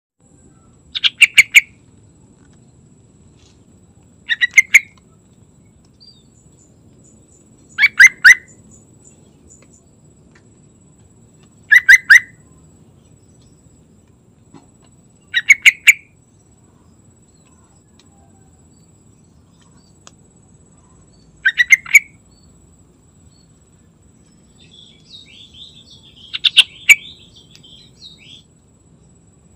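Yellow-vented bulbul (trucukan) singing in short loud phrases of a few rapid notes, one phrase about every three to four seconds, seven in all, with softer chattering between the last two near the end.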